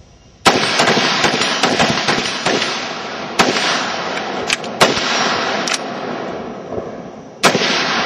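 A line of AR-15-style carbines firing rapidly together, the shots overlapping into a continuous crackle. It starts suddenly about half a second in, with a few louder single reports standing out.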